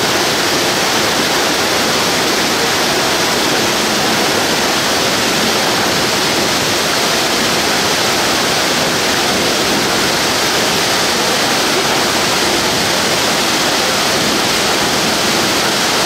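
Waterfall: a loud, steady rush of falling water that stays even throughout.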